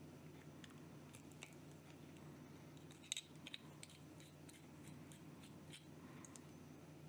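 Faint small clicks and ticks of a metal fountain pen's parts and a plastic ink cartridge being handled and fitted together, the sharpest click about three seconds in, over a low steady room hum.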